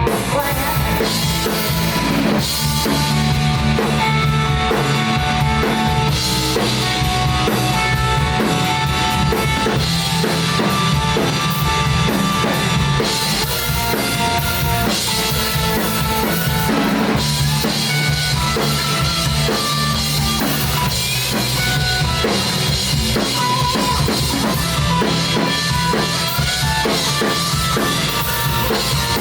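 Band music with a prominent drum kit, bass drum and snare keeping the beat under sustained instrument notes.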